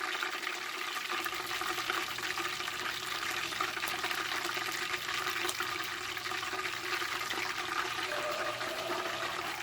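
Hot oil bubbling and sizzling steadily in a deep fryer around a frozen hamburger patty, the moisture from the meat making the oil spit and pop.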